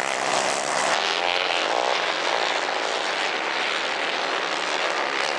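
Several 150 cc racing kart engines buzzing at high revs, overlapping, their pitch rising and falling.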